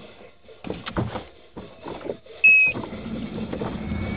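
A few knocks and rustles of handling, then a short, loud electronic beep from a car about two and a half seconds in, followed by a steady low hum of the car's engine running.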